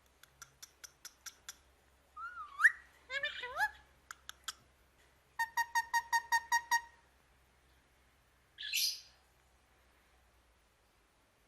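Pet parrot vocalizing: a quick run of sharp clicks, then rising and falling whistles, then a fast string of short beeping notes. The sequence ends with one short harsh squawk.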